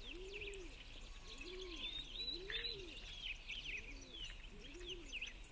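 Faint woodland birdsong: small songbirds chirping high and quick over the low, repeated rise-and-fall cooing of a dove.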